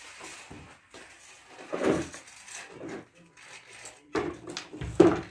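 Knocks and clatter of hard objects being handled and set down: a few separate bumps, the loudest shortly before the end.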